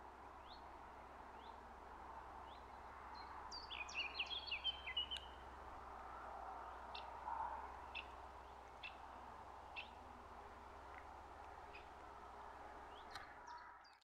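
Wild birds calling in woodland. A run of short, rising chirps about twice a second is followed by a brief burst of twittering about four seconds in, then scattered single calls, all over a faint steady background rush.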